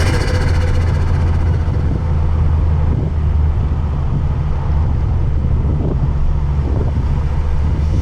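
Ford Focus XR5 Turbo's turbocharged 2.5-litre five-cylinder engine running steadily with a low, even drone, its pitch holding level without revving.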